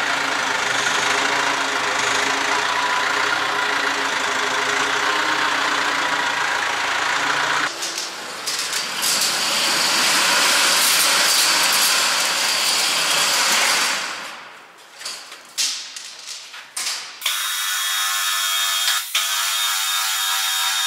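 Telehandler's diesel engine running. After about eight seconds the sound changes to a steady rushing noise, and in the last few seconds there is a steady hum with a few sharp knocks.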